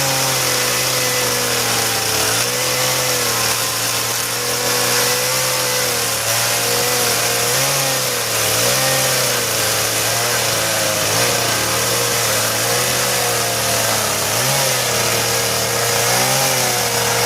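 Petrol chainsaw running under load while cutting, its two-stroke engine note sagging and recovering several times as the chain bites.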